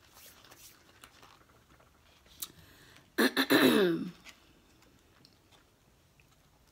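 Faint eating and food-handling noises: light clicks and crackles of chewing and of a burger and its paper box being handled. About three seconds in comes a short voiced sound that falls in pitch, the loudest thing here.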